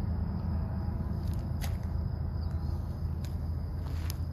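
Steady low rumble of a distant diesel locomotive, with a faint high insect drone and a few small clicks over it.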